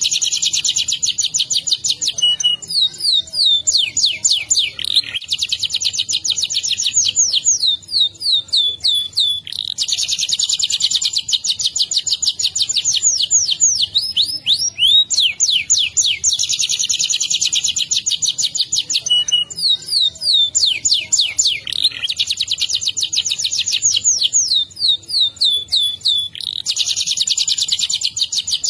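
Domestic canary singing a long rolling song (ngerol): stretches of very fast trills of rapidly repeated high notes, alternating with slower downward-sweeping notes, phrase after phrase with only brief breaks.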